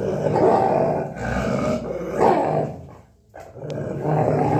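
A Rottweiler growling in long rough stretches, breaking off briefly about three seconds in, then starting again.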